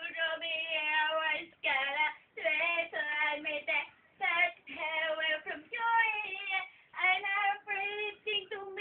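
A female voice singing unaccompanied, in short phrases of held notes with brief pauses between them.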